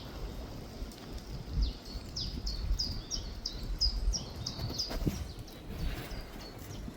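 A songbird singing a series of short, high, repeated notes, about three a second, lasting a few seconds.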